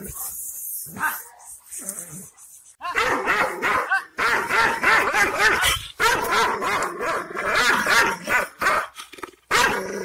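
Turkish shepherd guard dog barking angrily at a stranger, a territorial warning. The barking breaks out about three seconds in and runs in rapid, nearly continuous volleys with short breaks.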